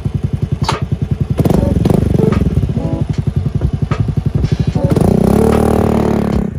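Honda Fusion 250 scooter's single-cylinder four-stroke engine through a long twin-tip exhaust, idling with an even, loping pulse, then blipped several times from about a second and a half in. Near the end it revs up and holds as the scooter pulls away.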